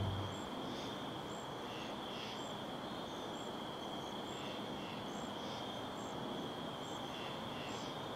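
Crickets chirping in a steady, even chorus, with a higher chirp repeating about once a second over a faint hiss. The last low note of a piece of music dies away just at the start.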